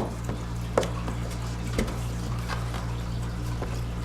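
Light clicks and taps of a plastic squeegee and hands handling a phone with a tempered-glass screen protector, over a steady low hum.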